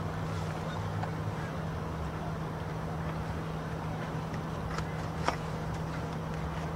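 Steady low hum over a background hiss, with a few faint clicks, the sharpest about five seconds in.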